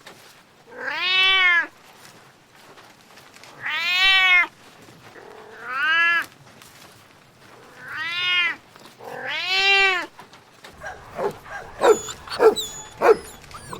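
A cat meowing five times, long calls that rise and fall in pitch, a second or two apart. Near the end comes a quick run of short sharp yelps and thin high whines.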